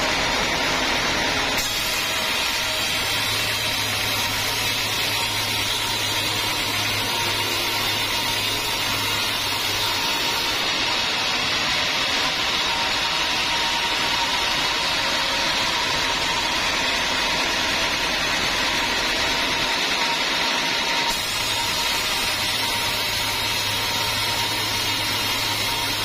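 Band sawmill blade cutting lengthwise through a hard teak log: a steady, even sawing noise over the machine's running hum, with a constant thin tone from the saw.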